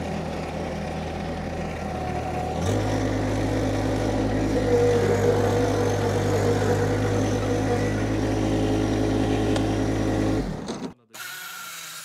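John Deere compact tractor's diesel engine running steadily, stepping up to higher revs about a third of the way in and holding there. It cuts off abruptly near the end, leaving a much quieter background.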